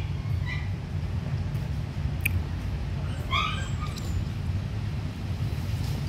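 A dog eating rice from a plastic plate, with a sharp click about two seconds in, over a steady low rumble. A short high chirp comes about three and a half seconds in.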